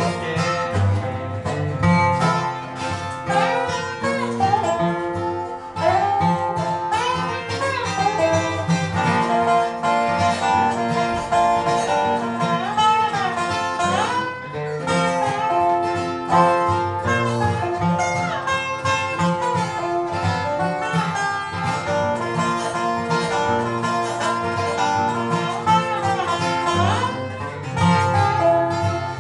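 Bluegrass instrumental break: a dobro plays the lead with notes sliding up and down, over an acoustic guitar's strummed rhythm.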